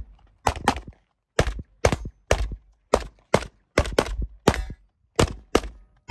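A fast string of pistol shots at a practical-shooting range, about a dozen in six seconds, many fired as quick pairs (double taps).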